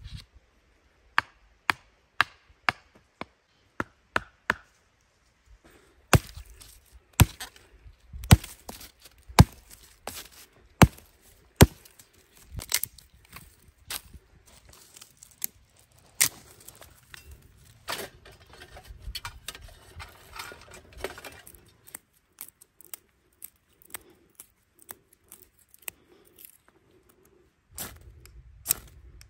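A series of sharp chopping knocks, at first about two a second, then irregular, with quieter scraping and handling noise between the strikes.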